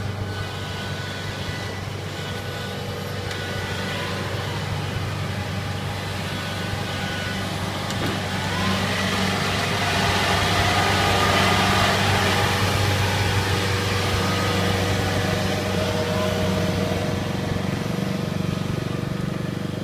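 Kubota tracked combine harvester's diesel engine running steadily as the machine drives along on its tracks. It grows louder about halfway through, then eases off a little.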